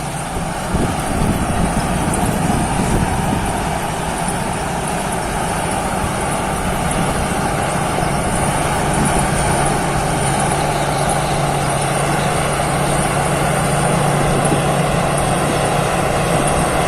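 Thai Seng combine harvester running steadily while cutting rice, a continuous engine and machinery drone with a steady low hum that settles and strengthens about halfway through.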